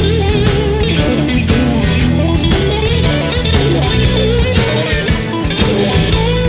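Rock music: an electric guitar plays a wavering lead line over bass and drums keeping a steady beat.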